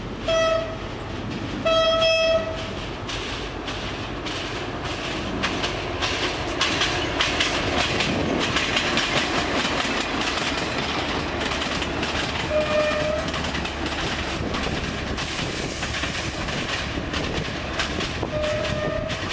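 A train horn blasts twice near the start, a short blast and then a longer, louder one, then two fainter short horn notes come later. In between, a Class 158 diesel multiple unit runs past with its engine and its wheels clacking over the rail joints; the noise builds to a peak near the middle and then eases as it moves away.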